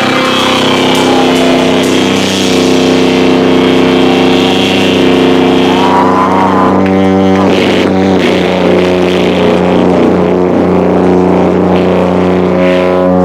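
A live rock band's distorted amplified instruments holding a loud droning chord, with pitch slides about six to eight seconds in, overloading the camcorder's microphone.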